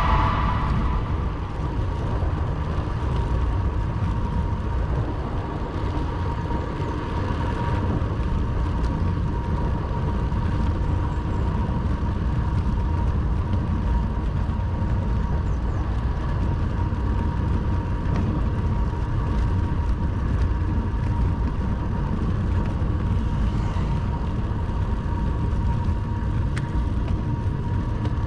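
Ride audio from a camera on a moving bicycle: wind rumbling on the microphone over steady road noise, with a faint steady whine.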